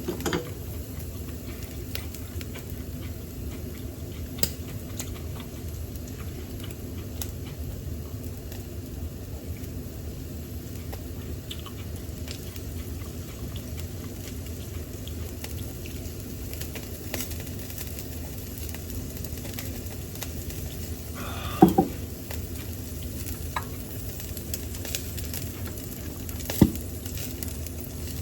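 Pork and onion skewers sizzling on an electric shichirin grill, with small scattered pops of fat over a steady low background noise. Two sharper knocks stand out, one about 22 seconds in and one near the end.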